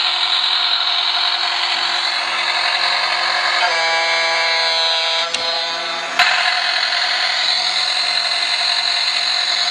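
Battery-powered bump-and-go toy cruise ship running: a steady buzzing whir from its motor and the electronic sound effects of its small speaker. A horn-like tone sounds about four seconds in for a second and a half, and sharp clicks come near five and six seconds.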